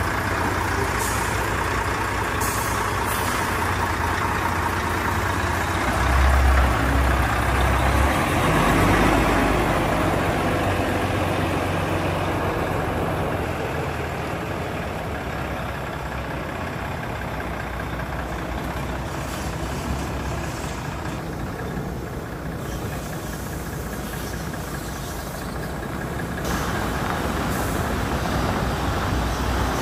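Heavy diesel engine of a Volvo tractor unit running as the truck and its tipper trailer move off slowly, with a louder rumble about six to nine seconds in.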